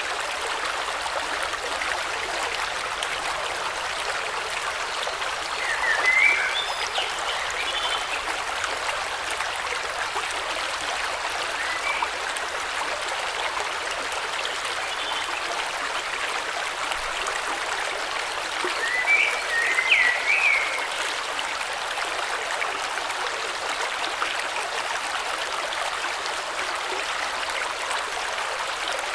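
River water flowing steadily with an even rushing sound. A few short bird chirps break in about six seconds in and again around twenty seconds.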